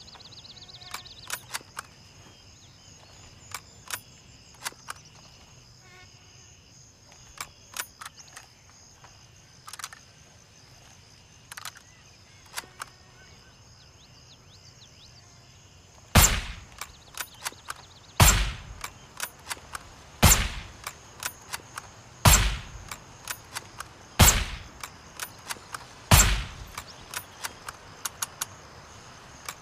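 Scattered light clicks and ticks, then six loud suppressed Mosin-Nagant rifle shots about two seconds apart in the second half, each with a short tail. Lighter clicks come between the shots.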